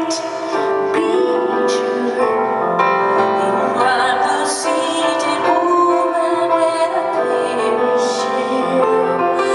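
A woman singing with piano accompaniment in a live concert performance, the voice holding long, wavering notes over sustained chords.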